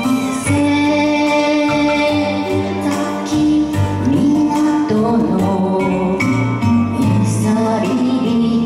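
A woman singing an enka ballad into a microphone over instrumental accompaniment, holding long notes that waver in pitch.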